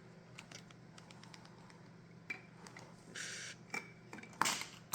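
Small plastic clicks and light knocks from a LEGO excavator model being handled and rolled on its tracks, with a brief scraping hiss about three seconds in and a sharper knock near the end.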